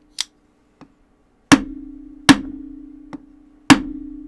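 Spine of a Petrified Fish folding knife whacked against a hard surface in a spine-whack lock test: two light taps, then three hard strikes, each with a short ringing tail, and another light tap between the last two. The lock holds and does not fail.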